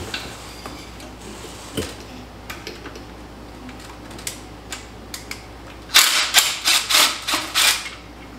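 Cordless impact wrench hammering in a few short bursts about six seconds in, undoing a bolt during removal of a TH350 transmission from under the truck. Faint metal clicks and taps come before it.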